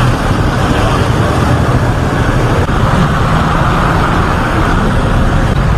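Road traffic: car and motorcycle engines running close by, a loud, steady rumble with no break.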